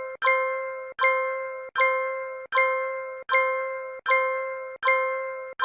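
A bell-like ding sound effect repeated at an even pace, about one every 0.8 seconds, eight times. Each ding rings and fades, then is cut off just before the next.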